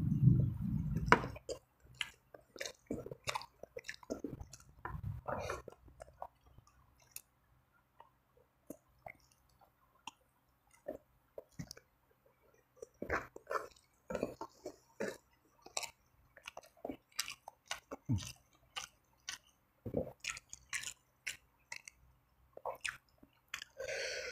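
Close-up eating sounds of fried chicken in sticky spicy sauce with spicy fried noodles: wet chewing, lip smacks and irregular small clicks. The sounds are thinner for a few seconds midway.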